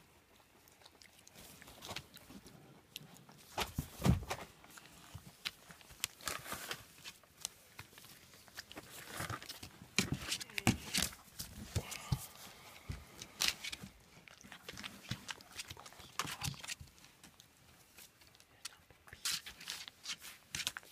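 German shepherd puppies eating dry kibble from steel bowls: irregular crunching, clinks and knocks against the bowls, and scuffling on newspaper. The loudest knocks come about four and ten seconds in.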